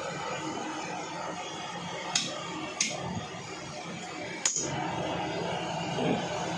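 Three sharp chops of a butcher's cleaver cutting goat legs against a wooden chopping block: two about half a second apart a little after 2 seconds in, and a third near 4.5 seconds. Steady background noise runs underneath.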